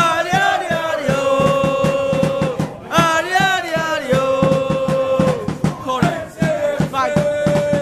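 Football supporters singing a terrace chant, one voice close and loud over the rest, holding long notes between rising and falling phrases, over a steady beat.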